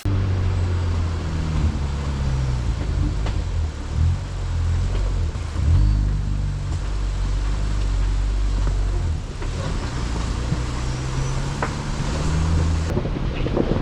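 Jeep engine running as it drives a muddy trail, its pitch rising and falling with the throttle, with a few knocks along the way.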